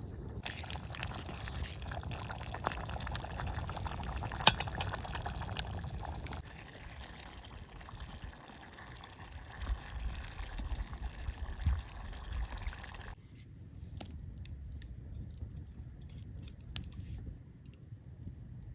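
Campfire crackling with food sizzling over it, a dense crackle with scattered sharp pops; the loudest pop comes about four and a half seconds in. The sound changes abruptly twice, as if in separate takes.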